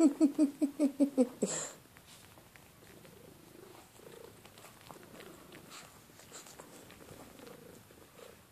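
A rapid, rhythmic run of short pitched breaths or purr-like pulses from one of the two pets, about six a second, which stops after a second or so with a brief rustle; after that only faint small rustles.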